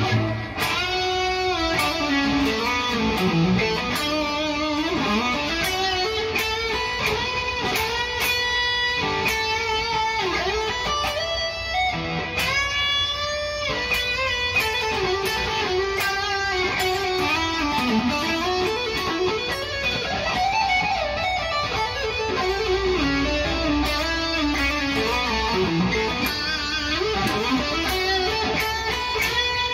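PRS SE Custom 24 electric guitar played through a Mesa Triple Crown TC-50 tube amp with an overdriven lead tone, playing single-note lead lines with string bends and vibrato on sustained notes.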